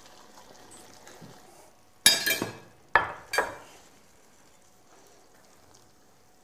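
A metal utensil clanking against a cooking pot while the peas are stirred in: one ringing clatter about two seconds in, then two sharp knocks about a second later. Under it is a faint hiss from the simmering pot of rice.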